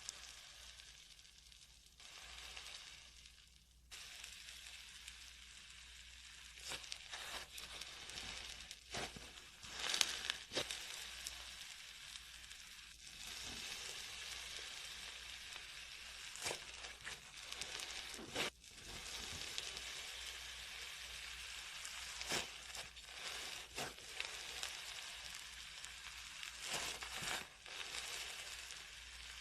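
Slime being mixed and worked by hand: a continuous crackling hiss, broken by frequent sharp pops and clicks.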